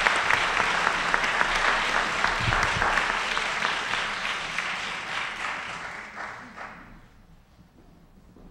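Audience applauding, the clapping fading out about six to seven seconds in.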